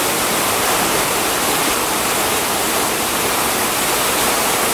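Steady rush of water falling from a large wooden waterwheel and splashing into the pond below.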